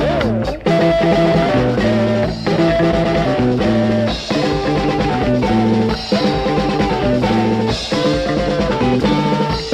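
Instrumental psychedelic rock from a late-1960s record: electric guitars over bass and a drum kit, with no vocals. A new passage comes in at the start with a sliding note.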